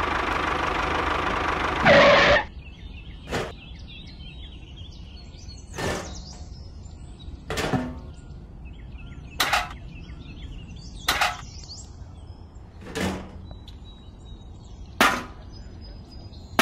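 A loud steady noise cuts off about two seconds in. It is followed by sharp knocks or strikes, one about every two seconds, with faint bird chirps between them.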